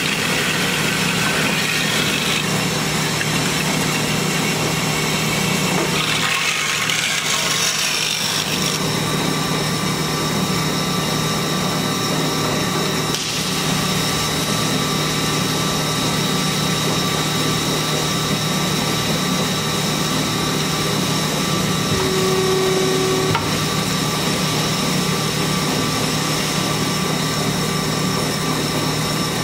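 Hyd-Mech S-23A horizontal band saw running, its blade feeding down through a steel square tube under flood coolant: a steady motor hum with a thin high whine from the cut.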